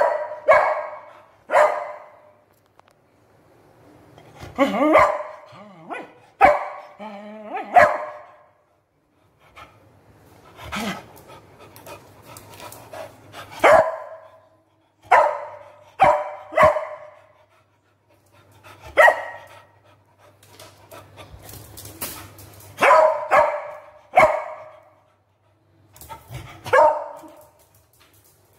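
Beagle barking again and again: short loud barks in ones, twos and threes, every couple of seconds, with brief pauses between the clusters.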